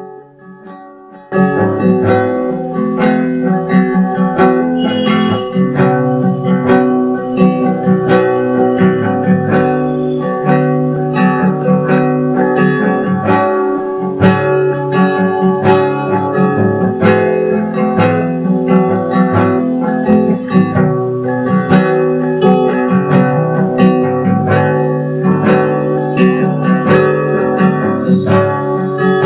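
Background music led by acoustic guitar strumming, jumping from low to full level about a second in and then playing on steadily.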